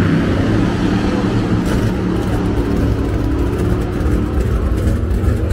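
Drag race cars' engines running loudly in a steady low rumble, with slight changes in pitch, as the cars sit lined up waiting their turn to race.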